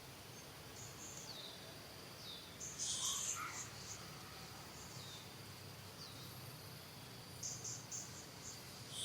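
Faint outdoor ambience: steady insect chirring, with short high chirps and squeaks scattered through it, one louder squeak about three seconds in and a quick run of chirps near the end.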